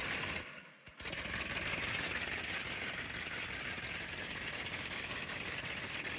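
A steady, rattling engine-like running noise. It drops away briefly about half a second in and comes back at one second.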